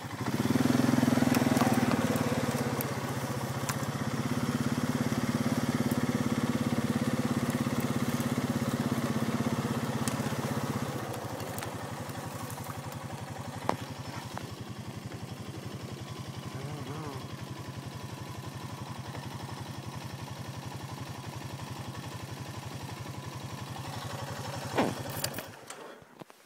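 ATV engine running as the quad is driven through brush, louder for about the first ten seconds, then settling to a steadier, quieter run. It shuts off just before the end.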